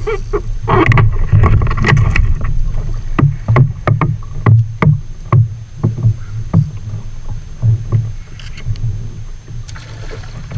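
Irregular knocks and low thumps on a plastic sit-on-top fishing kayak as it rocks at sea, with water slapping the hull and gear bumping against it. The knocks are heavier in the first half and ease off later.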